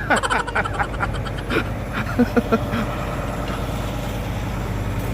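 A truck engine idling steadily, with a few short sounds near the start and about two seconds in.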